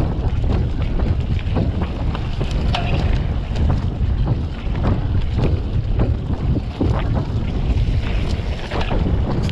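Deep wind rumble buffeting the microphone of a mountain bike riding along a dirt trail, with frequent short clicks and rattles as the bike runs over bumps.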